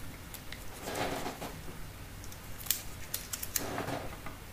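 Fine clicks and scrapes of metal tweezers working adhesive strips on a smartphone's bare metal mid-frame, with two short rustles about a second in and near the end.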